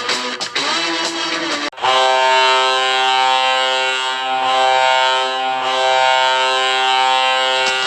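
Guitar-driven goal song that cuts off about two seconds in. The Colorado Avalanche's goal horn then sounds one long, loud, steady blast over music and stops just before the end.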